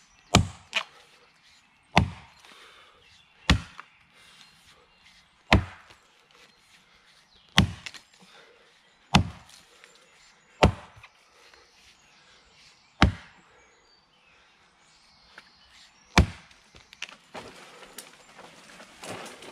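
Axe blows chopping into the trunk of a small birch tree: about ten sharp single strikes, irregularly spaced every two seconds or so, with two quick blows close together at the start.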